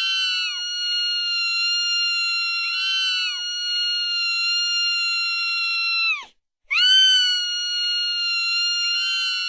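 A woman's shrill, very high-pitched scream held on one steady note, with small lifts in pitch now and then. About six seconds in it slides down and breaks off, then starts again after a short pause.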